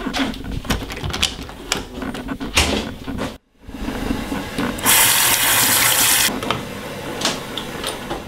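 Bathroom sink faucet turned on, water running for about a second and a half, then shut off. Before and after it, scattered clicks and knocks of doors and handling.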